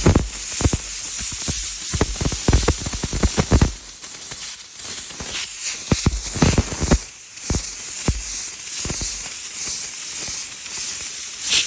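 Compressed-air blow gun hissing steadily as it blasts dust out of a reusable furnace filter, with uneven low thuds of air buffeting in the first few seconds and again around the middle.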